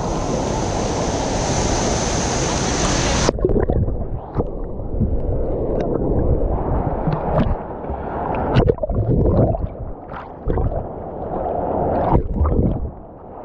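Steady rush of a waterfall, cutting off suddenly about three seconds in to muffled gurgling and sloshing water with scattered splashes.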